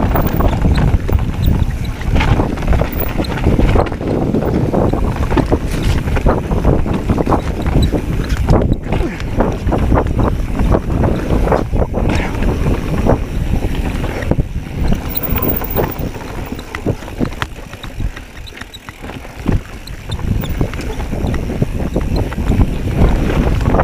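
Mountain bike descending a dirt forest singletrack: wind rushing over the action camera's microphone, with tyres rolling over dirt and loose gravel and the bike rattling and knocking over bumps. It eases off briefly a little past two-thirds of the way through.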